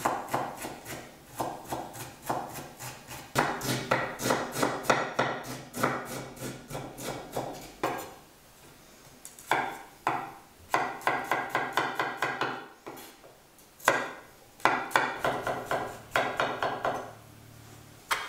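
Chef's knife chopping ginger on a wooden cutting board: quick runs of knocks against the board, broken by short pauses.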